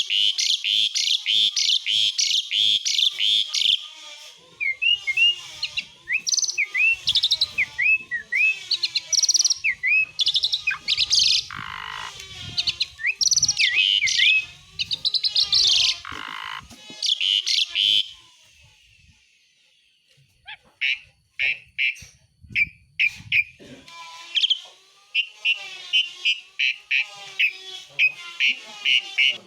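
Jalak suren (pied starling) singing: fast, harsh rattling chatter mixed with short down-slurred whistles. The song breaks off for about two seconds past the middle, then the chatter picks up again.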